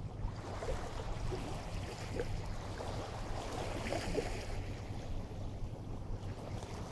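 Water moving along the shore of a tidal inlet, with wind and a steady low rumble underneath.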